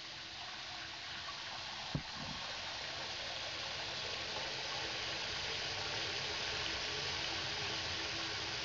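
Steady rushing water noise from the aquarium, slowly growing a little louder, with one sharp click about two seconds in.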